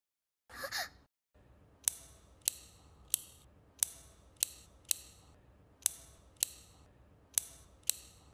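Box cutter blade being pushed out notch by notch: about ten sharp, slow ratcheting clicks, each with a brief metallic ring, coming in pairs and threes. A short sound falling in pitch comes before them, near the start.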